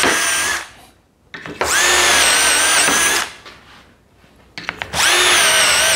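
Cordless drill with a 7 mm bit boring confirmat screw holes through a steel drilling template into 18 mm chipboard: the end of one hole, a whole hole of about a second and a half, then the next hole starting near the end. The motor gives a steady high whine that dips slightly in pitch, with short clicks in the pauses between holes.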